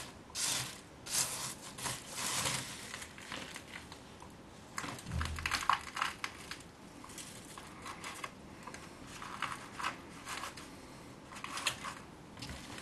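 Plastic bag of potting substrate crinkling and soil rustling as handfuls are scooped and pressed into the cells of a plastic seedling tray, in irregular bursts.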